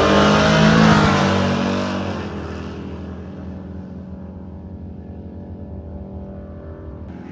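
Drag-race cars at full throttle accelerating away down the strip. The engine noise is loud at first, changes pitch over the first couple of seconds, then fades steadily as the cars pull away into a distant drone.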